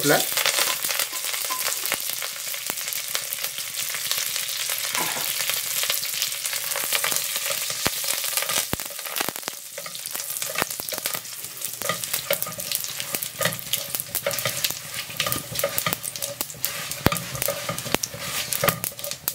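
Tadka of mustard seeds, cumin, dry red chillies and fresh curry leaves sizzling and crackling in hot ghee and oil in a kadai, stirred with a silicone spatula.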